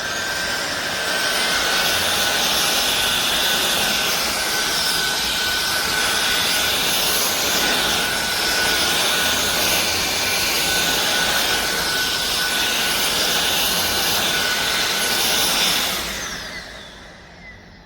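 SunSare X7A cordless stick vacuum cleaner running at full power, a steady high motor whine over rushing air. About sixteen seconds in it is switched off and the whine falls away as the motor spins down.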